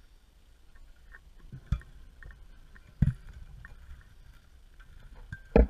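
Underwater knocks and thumps of a scuba diver's gear bumping against rock in a tight cave passage. There are three dull thuds, the loudest near the end, with faint clicking and ticking between them.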